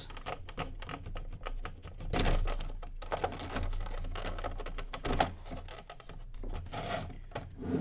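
Rapid clicks, rattles and scrapes of plastic and metal being handled as the leads are pulled off a UPS's 5.5 Ah sealed lead-acid battery. There is a louder scrape about two seconds in and a sharp click just after five seconds.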